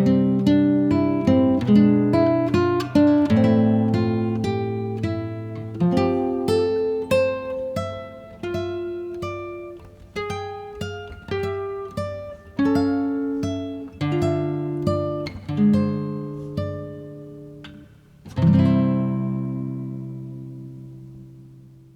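Background music: a solo acoustic guitar picking single notes in a gentle melody, ending with a strummed chord about three-quarters of the way through that rings out and fades away.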